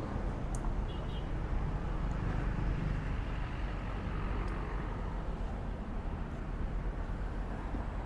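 Steady traffic noise from a busy city street, with cars and motorbikes passing.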